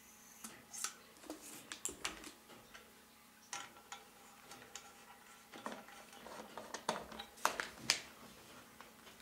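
Light, irregular metallic clinks and taps from handling the small alcohol burner of a model Stirling engine as it is filled and prepared, with the loudest taps near the end.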